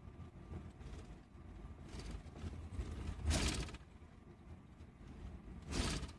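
Low road rumble inside a moving long-distance sleeper coach at night, with two brief louder rushes of noise, about three seconds in and near the end.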